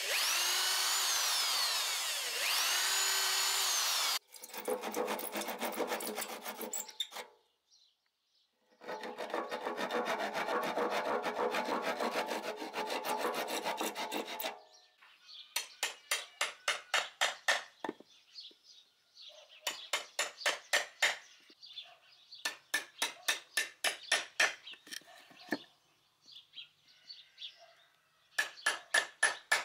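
An electric drill boring into a wooden board, its motor pitch rising and falling, for about the first four seconds. Then a handsaw cutting through the wood in two long stretches of strokes. From about halfway on, a hammer striking a chisel into the wood in runs of quick taps, about four a second.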